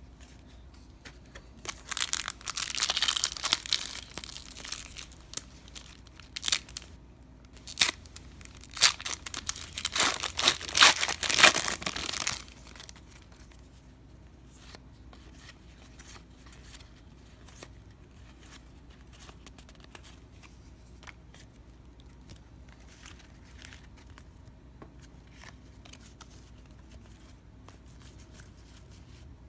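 A trading-card pack wrapper being torn open and crinkled, crackling loudly for about ten seconds. After that there are only faint light ticks.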